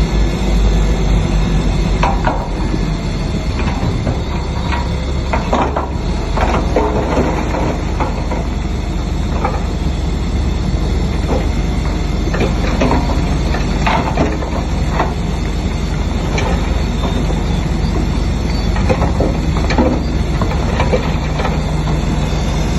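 Heavy diesel bulldozer engine running steadily, with irregular metallic clanks and knocks from its tracks and blade working through stone fill.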